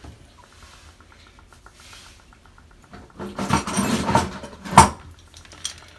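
Metal hand tools rattling and clinking as they are handled, with a sharp clack near the end. Before that there are a few quiet seconds with faint ticking.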